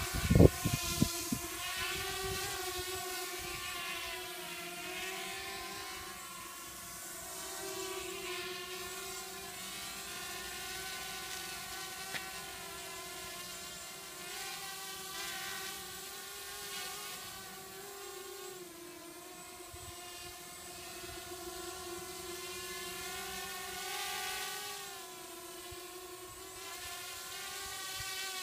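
EMAX 1806 2280kV brushless motors of a QAV250 quadcopter spinning its props in flight: a steady multi-tone whine whose pitch keeps rising and falling as the throttle is worked to hold it low over the ground. A few loud low thumps come in the first second or so.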